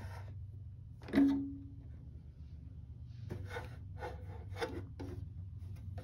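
Hands handling a plastic humidifier: one sharp knock on the plastic about a second in, ringing briefly, then several short rubbing scrapes and clicks against the clear water tank. A low steady hum runs underneath.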